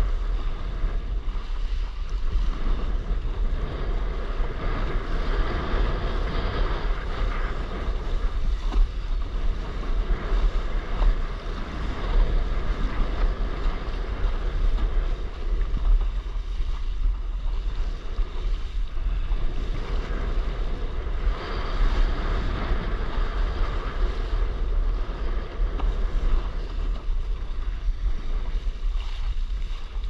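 Wind buffeting the microphone over the rush and splash of water against a windsurf board's nose as it cuts across choppy sea. The water noise swells twice, about a quarter of the way in and again past the middle.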